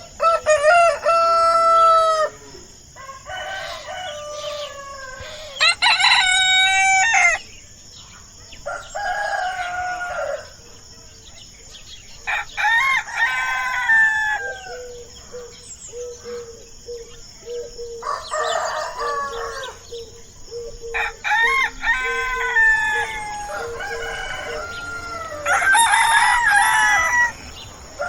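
Rooster crowing again and again, about eight crows of one to two seconds each, a few seconds apart.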